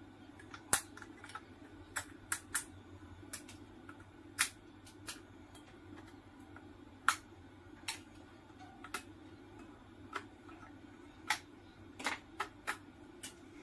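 Sharp metallic clicks and snaps at irregular intervals as a screwdriver pries the spot-welded nickel strips off the cells of a DeWalt power-tool battery pack, over a faint steady hum.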